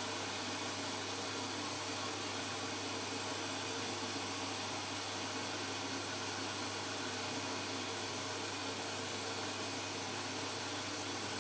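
Electrolux top-loading washing machine running in the wash phase of a short Time Saver programme, before the spin: a steady hum with an even hiss and no changes.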